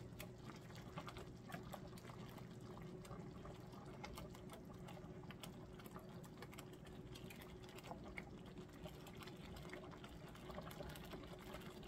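Faint wet stirring and light ticking of a wire whisk working through thick cheese sauce in a Le Creuset enameled cast-iron skillet.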